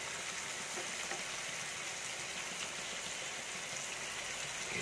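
Masala-coated fish pieces sizzling steadily in hot coconut oil in a kadai, with an even frying hiss.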